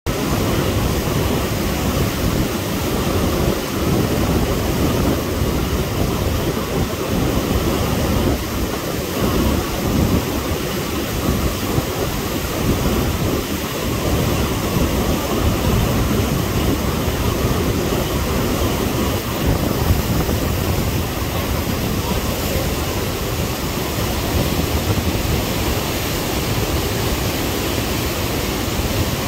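Whitewater of the Rogue River's Rainie Falls rapid, running at about 4,100 cfs, rushing steadily and loudly.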